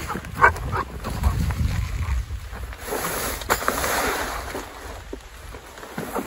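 Rustling and scraping of a pop-up hub-style ground blind being slid out of its carry bag, with a low rumble in the first couple of seconds and a sharp click midway.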